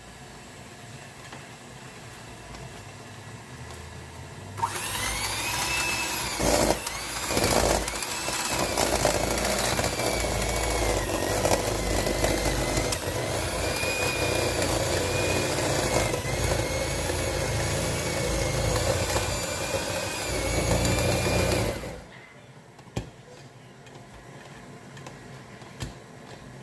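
A small electric kitchen appliance motor, such as a mixer or blender, switches on about four and a half seconds in and runs loudly for about seventeen seconds, its whine wavering in pitch as it works, before cutting off suddenly.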